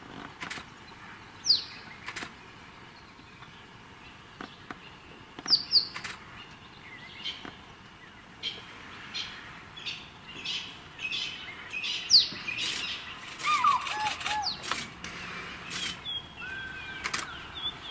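Wild birds calling at dawn: scattered chirps and sharp, high whistles that sweep downward, mixed with clicks. Lower whistled notes come in over the last few seconds.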